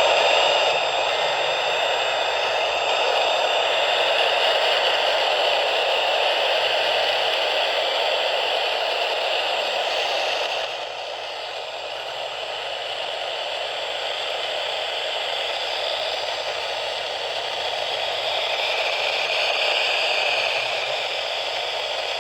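Steady static and hiss from a radio receiver on weak reception, a noise with no voice or tones in it, dipping a little about halfway through.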